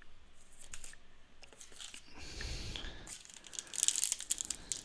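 Plastic wrapper of a 2013 Score football card pack crinkling as it is handled, then torn open near the end with a dense burst of crackling.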